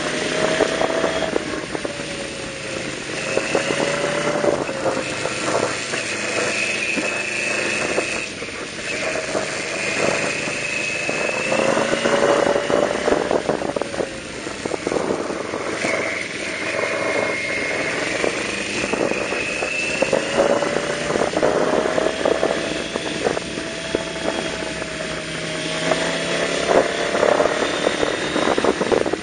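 Yamaha V-Max 1200's V4 engine running under way, its pitch rising and falling several times as the throttle is worked, over a steady rush of wind on the microphone.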